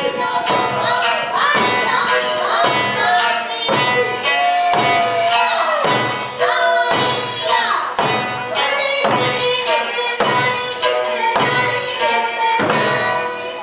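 Eisa drumming: large barrel drums and small hand drums struck together on a steady beat, about three strokes every two seconds, over Okinawan folk music with a singing voice.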